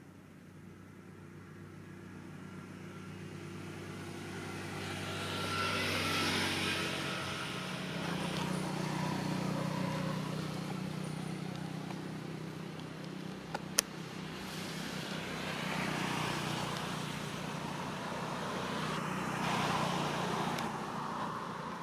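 A motor vehicle's engine running nearby, building up over the first several seconds, then swelling and easing a few times. A single sharp click partway through.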